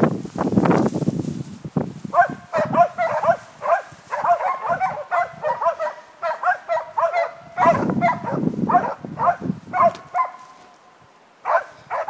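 Hunting dog barking rapidly and continuously at a cow moose it is holding at bay, several barks a second, with a short break near the end. Bouts of low rumbling noise come at the start and around eight seconds in.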